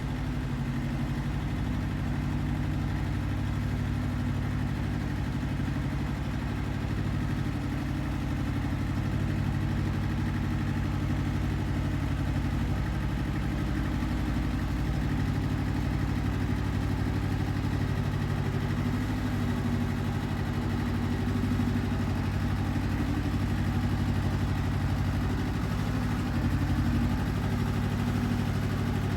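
Iseki TX1300 compact tractor's diesel engine running at a steady speed.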